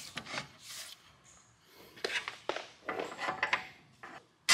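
Metal clinks, taps and scraping as a coilover spring is set into a Branick strut spring compressor and the compressor's arms are adjusted around it, with a cluster of quick clicks in the middle and a sudden loud hit right at the end.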